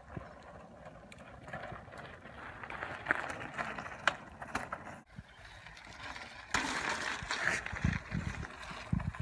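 Mountain bike tyres rolling over loose gravel, a crunching hiss with sharp clicks and rattles, loudest as the bike passes. The sound cuts out briefly about five seconds in. Then wind buffets the microphone with a loud rushing and low thumps.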